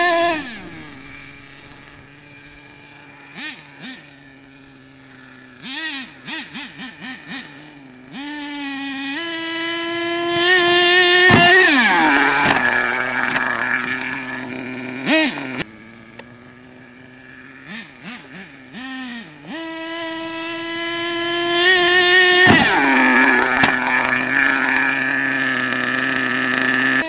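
HPI Savage 25 RC monster truck's small two-stroke nitro engine, fitted with a new exhaust, running at a high whine and dropping to idle about half a second in. It is blipped several times, then twice revs up to a high, steady whine held for a few seconds before falling back to idle.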